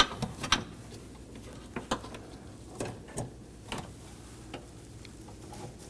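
Irregular light clicks and taps of metal and plastic as a car door's lock rod is worked into its plastic retaining clip on the exterior handle assembly, with the sharpest clicks right at the start.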